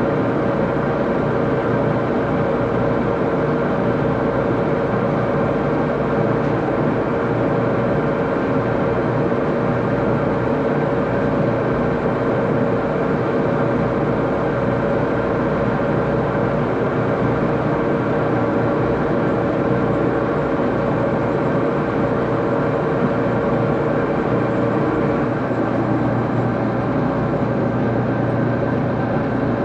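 Axelson engine lathe running steadily with a constant mechanical hum; the pitch of the hum shifts a little about 25 seconds in.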